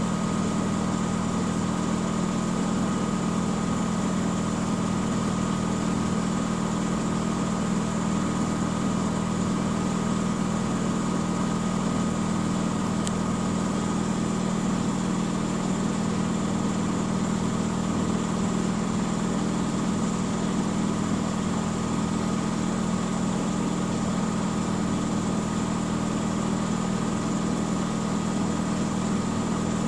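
Miele W 5963 front-loading washing machine running steadily in its high-speed spin, a constant hum with a thin steady whine above it.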